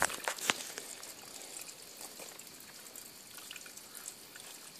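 Water trickling, with a few sharp knocks in the first half-second.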